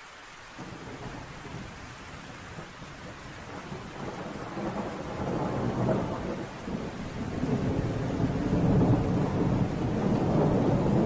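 Steady rain with rolling thunder that comes in about half a second in and builds, loudest in the second half.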